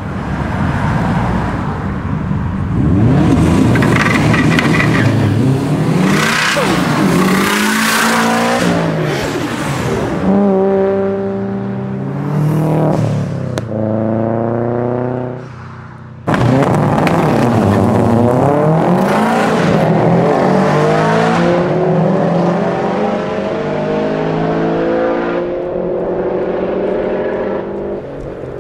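Turbocharged Subaru Impreza WRX GC8 with a fully built EJ20 flat-four and a GTX3076R turbo, accelerating hard several times, its engine note climbing through the gears with loud turbo and wastegate hiss. A cut about 16 s in leads to another full-throttle pull with a long, slowly rising note that fades near the end.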